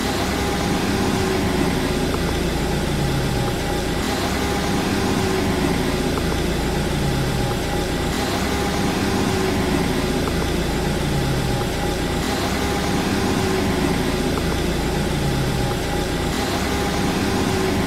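Mercedes-Benz E-Class engine idling steadily just after starting, heard from inside the cabin, with a faint low tone that rises and falls about every two seconds.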